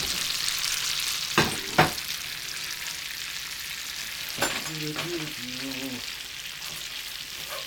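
A butter, white wine and lemon sauce sizzling and bubbling steadily in a skillet as it reduces. A few sharp knocks cut through it: two about a second and a half in, another about four seconds in.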